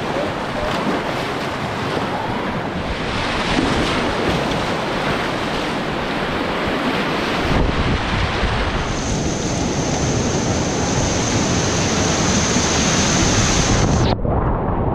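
Whitewater rapids rushing around a kayak, with wind buffeting the camera microphone. A thin, steady high whine joins about nine seconds in. Near the end the sound suddenly goes dull as the high end cuts out, just as the boat drives through breaking white water.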